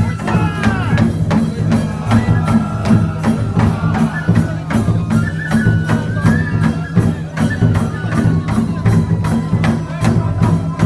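Traditional Japanese festival music: a high melody over drums and quick, even strikes of percussion.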